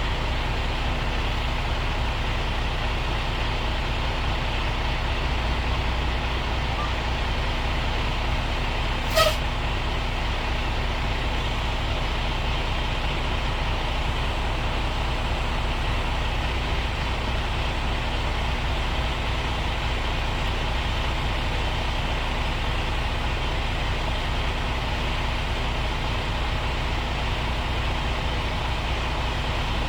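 Diesel truck engine idling steadily, with a deep low rumble and a constant hum. One sharp click about nine seconds in.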